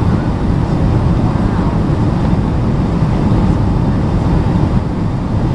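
Steady low rumble of cabin noise inside a Boeing 757-200 on final approach with its flaps extended: the engines and the airflow past the airframe.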